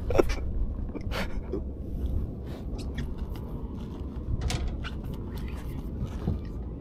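Low, steady rumble of a small fishing boat at sea, with scattered light knocks, clicks and scrapes on deck.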